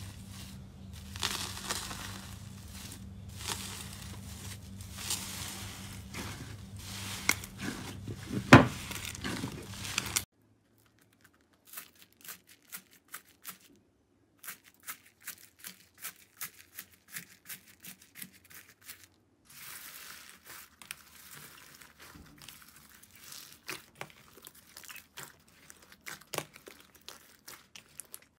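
Metallic foil wrapped around slime crinkling and crackling as fingers press and squeeze it. After a sudden cut about ten seconds in, a run of separate crisp clicks and small pops from foam-bead slime being worked, turning into squishing with clicks near the end.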